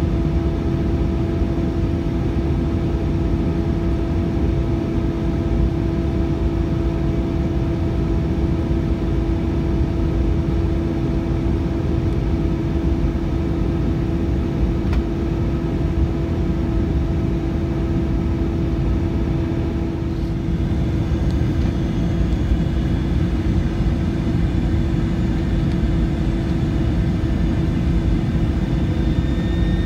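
Cabin noise inside an Airbus A321 on descent: the steady rumble of engines and rushing air with a constant engine hum. A faint high whine joins in about two-thirds of the way through.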